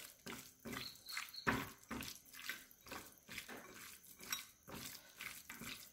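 A hand squeezing and kneading boneless chicken pieces in a wet chili marinade in a glass bowl: soft, irregular squelches, several a second.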